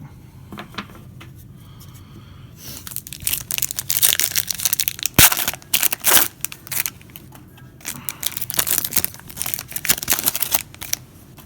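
Plastic trading card pack wrapper being torn open and crinkled, in quick rustles starting a couple of seconds in, with one sharp snap about five seconds in.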